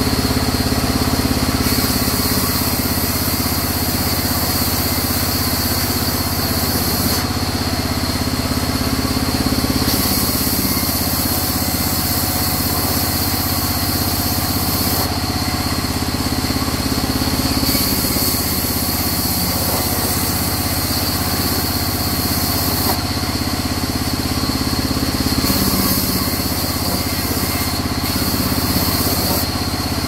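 Sawmill band saw running steadily while mahogany is fed through it and ripped into planks. A hiss rises and falls in stretches of a few seconds as the blade cuts.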